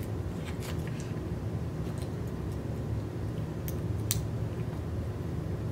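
A plastic fork clicking and scraping against an oyster shell a few times, the sharpest click about four seconds in, over a steady low hum.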